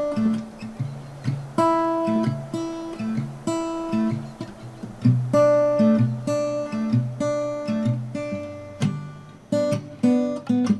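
Acoustic guitar music: picked notes that ring and fade one after another, a melody over a moving bass line.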